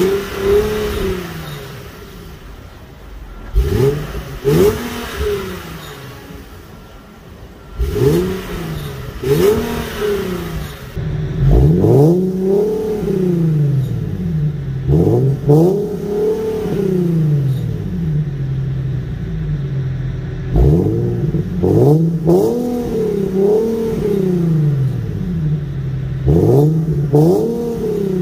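Infiniti G37's 3.7-litre V6 revved again and again through its muffler-deleted exhaust: short blips that rise and fall in pitch, some in quick pairs, with the engine idling steadily between them.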